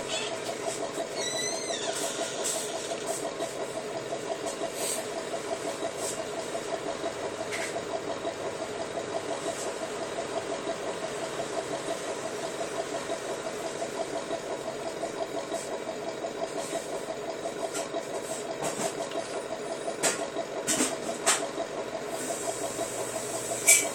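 Engine-like idling sound, a steady fast throb with no change in speed, with a few sharp clicks near the end.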